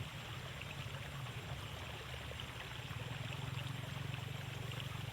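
Water running in a narrow irrigation ditch: a steady rush with a low flutter and a few faint ticks.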